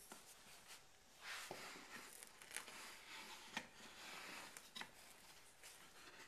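Faint scraping and rubbing of wooden can-crusher parts being slid and pressed into place by hand, with a few small clicks and knocks of wood on wood.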